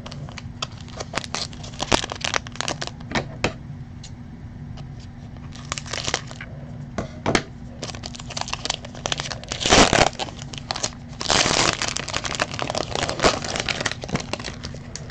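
Foil wrapper of a baseball card pack crinkling and tearing as it is opened by hand, with the cards inside handled, in many short crackles. Two louder rustling tears come about two-thirds of the way through, over a low steady hum.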